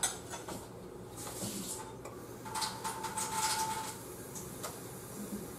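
Kitchen faucet running briefly into a glass measuring cup to add water to a flour gravy mix: a steady hiss with a faint tone for about a second and a half in the middle, with a few light clinks.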